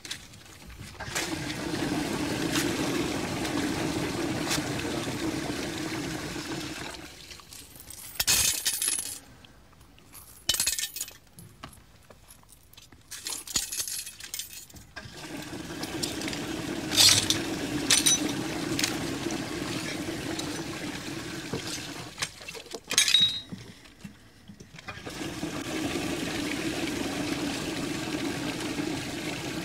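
A toilet flushing three times, each flush a few seconds of rushing water. Between the flushes, coins are tossed into the bowl, clinking and splashing into the water.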